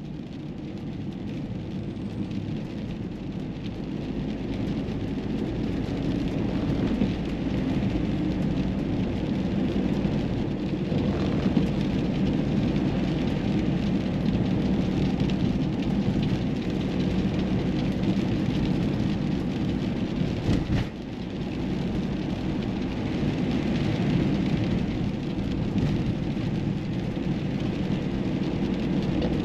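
Car on the move: steady low tyre and road rumble mixed with wind noise, building up over the first several seconds as it gathers speed. A short knock with a brief drop in the noise a little past the middle.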